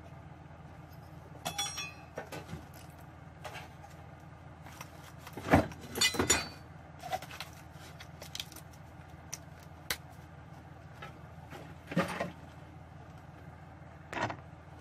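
Scattered knocks, clinks and rattles of a steel computer-case panel and hand tools being handled, the loudest cluster about halfway through, over a steady low hum.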